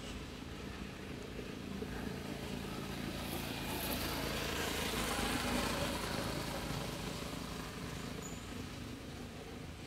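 Engine of a passing motor vehicle: a steady low hum that grows louder to a peak about halfway through, then fades away.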